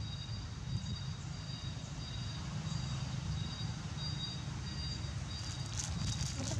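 Steady low outdoor rumble with a faint high steady whine coming and going, and a short rustle about six seconds in.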